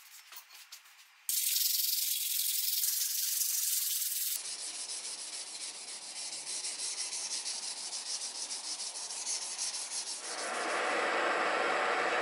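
Steel wool rubbing over a steel planer blade and rod: faint strokes at first, then loud and hissy from about a second in. Near the end a handheld butane torch flame hisses steadily.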